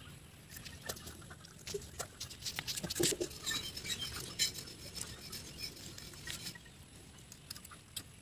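Irregular small clicks, crackles and rustles of kadam fruits (Neolamarckia cadamba) being bitten into, peeled and handled by hand, with a plastic packet rustling in a denser cluster about three to four and a half seconds in.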